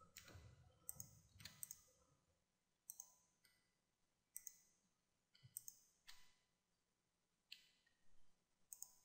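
Faint computer mouse clicks, mostly in quick pairs, every second or so over near silence.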